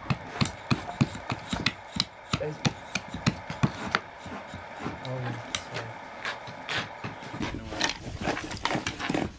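A small adze chopping a wooden spoon blank held against a wooden chopping block, in quick sharp knocks about three a second that thin out after the first few seconds.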